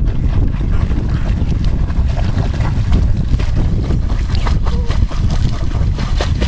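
Wind rumbling on the microphone, with water splashing as a Staffordshire bull terrier paddles and ducks its head under in shallow water; a few sharper splashes come around two thirds of the way in.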